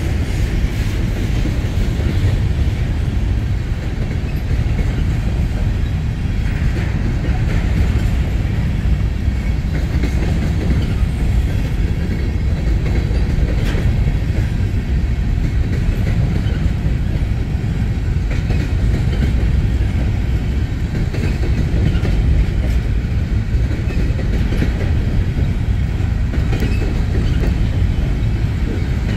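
Covered hopper cars of a grain train rolling past: a steady rumble of steel wheels on rail, with scattered clicks as the wheels cross rail joints.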